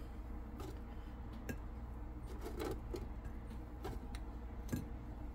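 Faint, scattered light taps and clicks as air-fried pizza rolls are lifted by hand out of a foil-lined wire air fryer basket, over a low steady hum.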